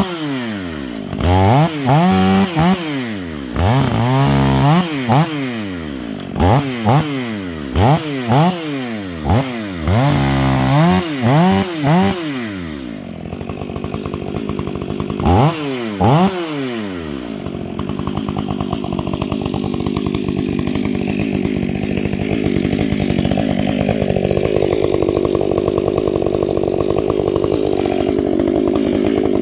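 Stihl 500i fuel-injected two-stroke chainsaw with an 8-pin rim sprocket, revved in quick throttle blips about once a second, rising and falling in pitch, then one more blip, then running steadily at a lower note under load as it cuts into wood, slowly getting louder.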